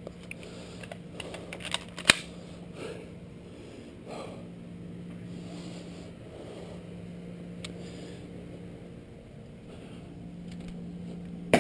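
A few sharp clicks and knocks in the first two seconds, the loudest about two seconds in, over a steady low hum, followed by faint handling noises.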